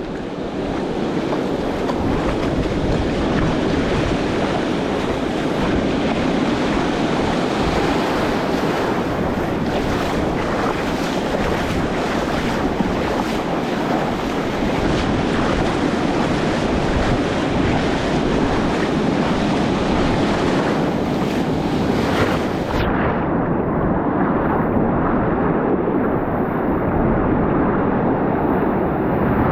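Steady roar of surf with wind buffeting the microphone. Near the end the hiss abruptly loses its high end.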